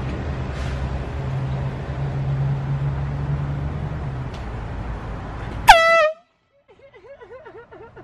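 Handheld canned air horn fired in one short, very loud blast about two-thirds of the way in, after a steady low hum. Its pitch drops sharply at the onset and then holds before cutting off suddenly.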